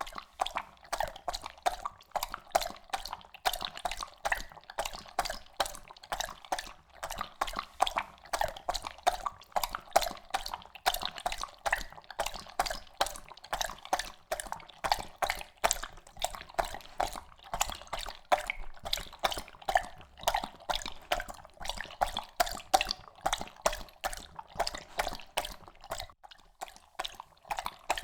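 Labrador lapping water, a quick steady rhythm of wet splashy laps at about three to four a second, with a brief break near the end.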